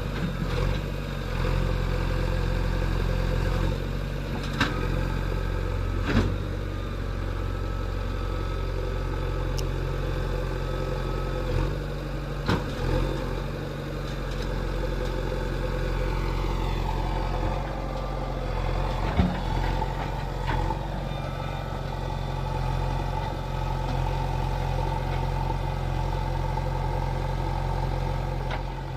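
JCB 3DX backhoe loader's diesel engine running steadily while working, with occasional sharp knocks and clatter.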